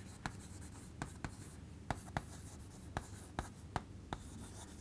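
Chalk writing on a blackboard: about ten short, irregularly spaced taps and scratches as letters are formed.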